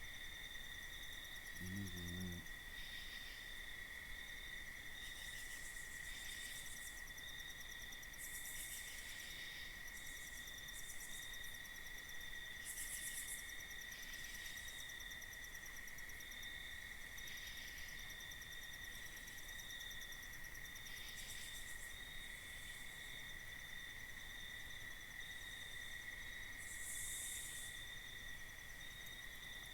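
Night insects trilling steadily in a chorus, with pulsing higher chirps over a constant high trill. About two seconds in, a brief low pitched sound stands out once.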